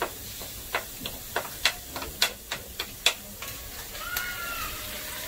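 Cumin seeds and onions sizzling in hot oil in a steel kadhai, with a string of about a dozen sharp crackles and clicks over the first three seconds as the seeds hit the oil and a spatula stirs the pan.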